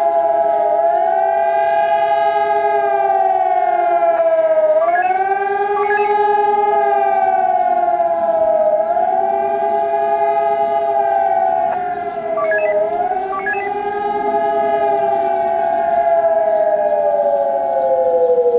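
Civil-defence sirens sounding a test alarm: a wailing tone rises and falls about every four seconds while a steady tone holds beneath it, more than one siren overlapping. Near the end the pitch slides steadily down.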